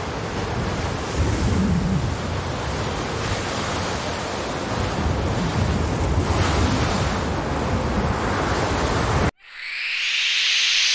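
Horror sound effect: a dense rushing noise with a heavy low rumble and slow swells, like wind or surf, cut off abruptly about nine seconds in. A hiss then swells up near the end.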